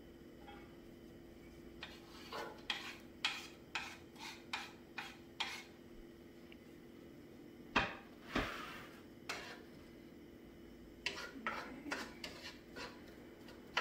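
Wooden spoon tapping and scraping minced onion off a wooden cutting board into a frying pan, a quick run of light knocks, then two louder knocks about 8 seconds in and more tapping as the onion is stirred in the pan near the end.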